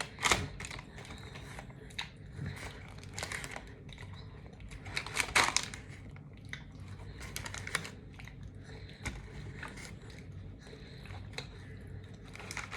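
Close-miked chewing and mouth noises of someone eating a sub sandwich, with scattered crinkly clicks; the loudest bursts come just after the start and again about five seconds in.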